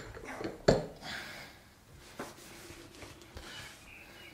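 Heavy metal lathe compound-slide parts being handled and set down on a cloth-covered bench: one sharp knock a little under a second in, a couple of lighter knocks, and soft rustling of cloth in between.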